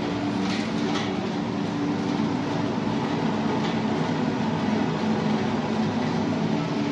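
Olive mill's leaf-removing machine running, a steady mechanical hum over a constant rush of noise, with a few faint clatters about a second in.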